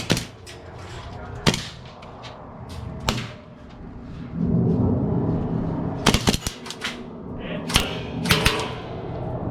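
Airsoft guns firing sharp single cracks, one about a second and a half in and another about three seconds in. A quick string of shots comes about six seconds in, and a few more near the end.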